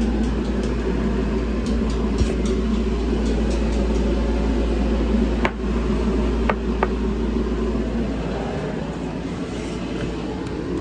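A steady low rumble of background noise, with a few sharp clicks of hand tools against metal engine parts, the first about five and a half seconds in and two more close together about a second later.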